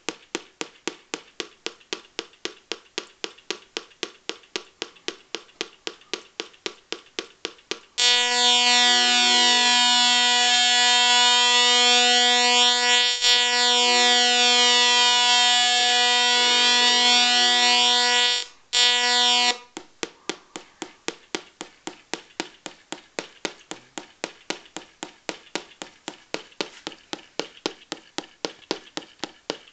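Electronic sound effects from a Velleman MK170 star kit: fast, even ticking at about three or four ticks a second. About eight seconds in, a loud, steady, buzzy electronic tone with many overtones takes over for some eleven seconds. It breaks off briefly once before stopping, and the ticking returns.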